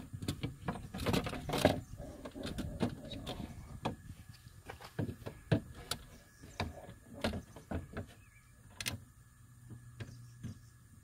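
Irregular clicks, knocks and rattles as a new power window regulator and motor assembly is wiggled into place inside a 2011 Buick Lucerne's door, its metal frame bumping against the door's inner panel. A cluster of rattling comes about a second in.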